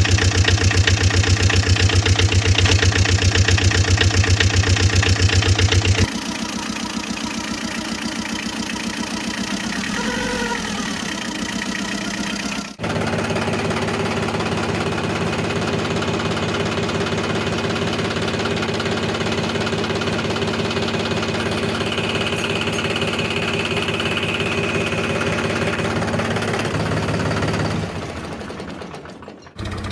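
Engine running steadily in several spliced stretches. It changes abruptly about 6 seconds and about 13 seconds in, has a brief wavering tone about ten seconds in, and dies away near the end.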